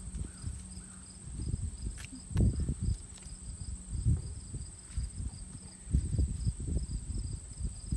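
Crickets chirping: a steady high trill with a softer, evenly repeated chirping under it. Irregular low rumbles run beneath, the loudest about two and a half and six seconds in.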